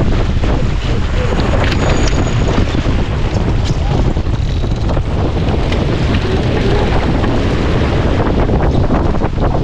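Wind buffeting the microphone over water rushing past the hull of a Farr 280 sportsboat under sail, with a few sharp clicks and knocks about two to four seconds in.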